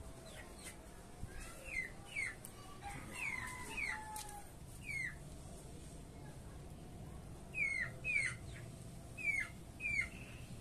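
Small bird chirping: about ten short, quick chirps, each falling in pitch. They come in a loose run in the first half and a tighter group of four near the end.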